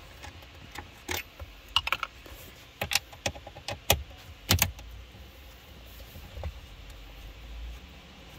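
Metal clicks and rattles of a socket on a long extension working 7 mm mounting bolts loose behind a car head unit. Sharp clicks come over the first few seconds, with a short run of quick, even clicks near the middle, then it goes quiet apart from one faint knock.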